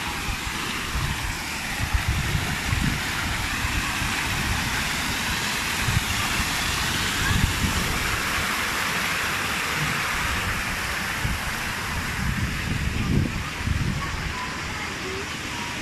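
Water pouring from an artificial rock waterfall into a swimming pool and running along a shallow channel: a steady rush of falling and flowing water, with irregular low rumbles underneath.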